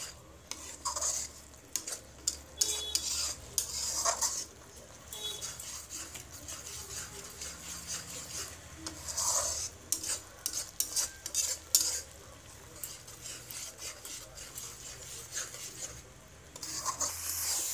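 Metal spatula stirring and scraping a thick masala paste around a metal kadai as it is fried (bhuna), in irregular strokes with clinks against the pan over a light sizzle.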